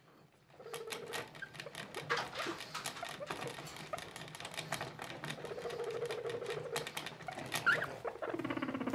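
Skinny guinea pigs rustling and nibbling in hay and wood-shaving bedding, a steady patter of small clicks and crackles. A brief rising squeak comes near the end, then a low, rapidly pulsing guinea pig vocalisation begins.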